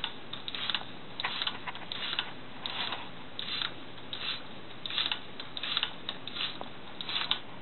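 Hand-worked air pump inflating a bicycle inner tube: a regular run of short puffs of air, one with each pump stroke, about one to two a second.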